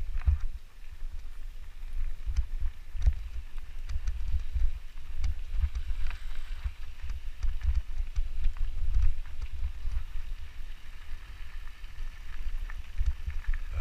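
Mountain bike rolling along a gravel dirt road: tyres crunching over loose gravel and the bike clattering with many short sharp ticks over bumps, over a steady low rumble.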